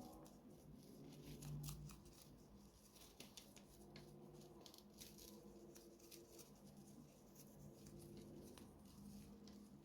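Near silence with faint, scattered small clicks and light scratchy handling noises, over a low steady hum.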